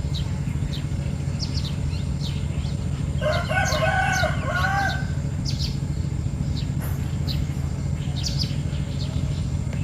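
A rooster crows once, about three seconds in, a drawn-out call of nearly two seconds. Short, high small-bird chirps come and go around it over a steady low rumble.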